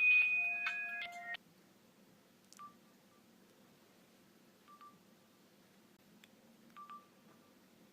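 Nokia N96 ringtone, an electronic melody of synthesized notes, cutting off suddenly about a second and a half in. Then three faint, short phone keypad beeps about two seconds apart over a low hum.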